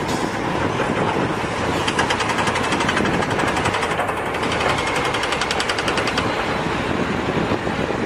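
Heavy eight-wheel dump truck's diesel engine running as the truck drives, with a fast, even clatter through the middle of the sound.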